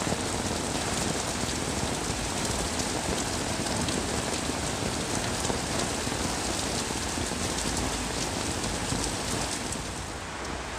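Heavy rain falling steadily, a dense hiss full of fine pattering drop impacts; it eases a little near the end.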